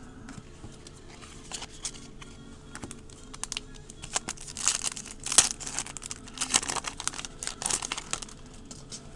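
A baseball card pack's wrapper crinkling and tearing open and cards being handled, a string of short rustles and snaps that grows busier about four seconds in.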